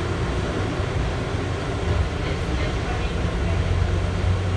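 Automated people mover train running along its elevated concrete guideway, heard from inside the car: a steady low rumble and hum.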